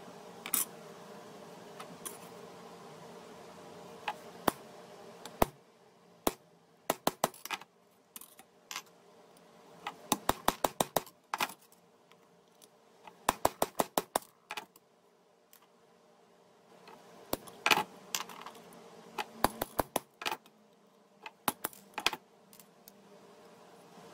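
Hammer tapping a steel pin punch to drive the rivets out of a wooden-stocked carpenter's square over a bench anvil: sharp metal taps, some single and some in quick runs of six or seven. A steady low hum stops about five seconds in.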